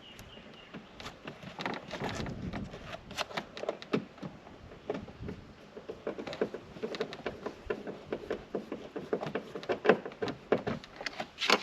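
Irregular light clicks, taps and knocks of plastic door trim and clips being handled and pushed into place on a car door, thickening into a quick run of small clicks in the second half.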